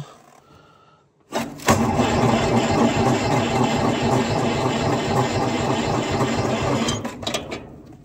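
Electric starter cranking the cold Detroit Diesel 2-71 two-stroke diesel of an Allis-Chalmers HD5 bulldozer with the fuel on. It starts suddenly about a second in, runs steadily for about five seconds and then winds down, without the engine catching.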